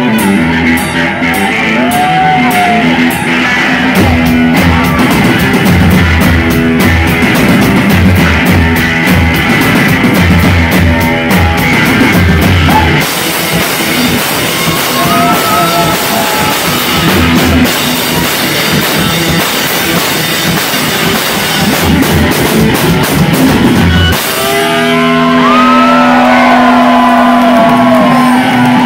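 Live rock band of distorted electric guitar and drum kit playing loud. About 24 seconds in the drums drop out, and a held guitar chord rings on with bending notes above it.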